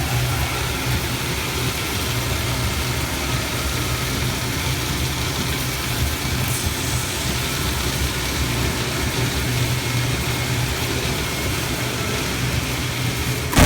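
Paper rewinder machine running steadily, a constant low hum with an even hiss of moving parts above it.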